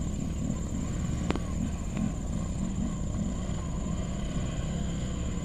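Motorcycle engines running as the bikes ride toward the camera on a rocky dirt road, with a truck engine farther off, heard as a steady low rumble. One sharp click about a second in.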